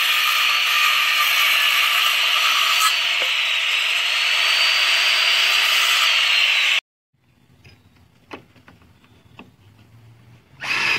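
A power saw cutting wood: a steady, loud whining hiss for about seven seconds that cuts off abruptly. After it come faint clicks and knocks of handling, and a short loud burst near the end.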